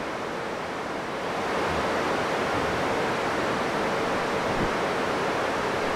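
Steady rushing hiss of radio static on an amateur radio link, growing a little louder after about a second and a half.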